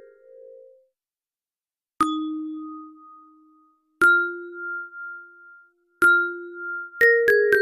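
Ringtone melody in a chiming, mallet-like tone. A quick run of notes dies away, then after a short silence single notes ring out about every two seconds, and a new quick run of notes starts near the end.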